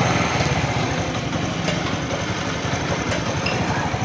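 Motorcycle engine idling steadily, with an even low pulsing beat.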